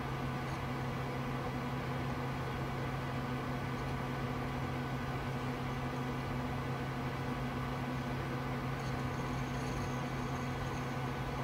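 Steady hum and whir of a running desktop computer's fans and power supply: a constant low hum with a few faint steady tones over an even hiss.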